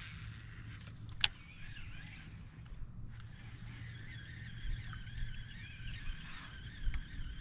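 Spinning fishing reel being cranked, a steady, slightly wavering whir, with one sharp click about a second in, over a low steady hum.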